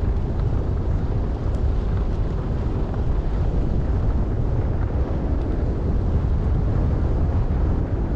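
Steady wind buffeting a skier's camera microphone while skiing downhill, over the hiss of skis sliding on snow.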